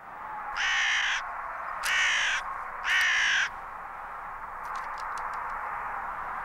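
A crow cawing three times, each caw about half a second long and about a second apart, over a steady hiss.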